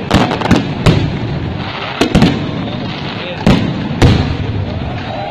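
Aerial firework shells bursting with sharp bangs: a quick cluster in the first second, then more about two, three and a half and four seconds in.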